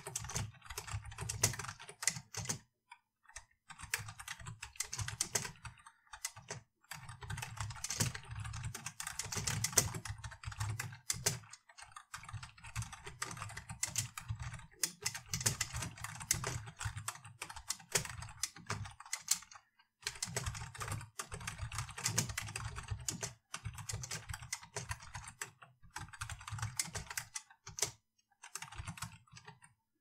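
Typing on a computer keyboard: runs of quick keystrokes broken by brief pauses every few seconds.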